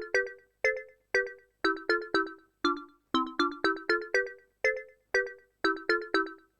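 Korg Minilogue analog synthesizer playing a short plucked preset: a repeating rhythmic pattern of clipped notes and chords, each starting sharply and dying away within a fraction of a second.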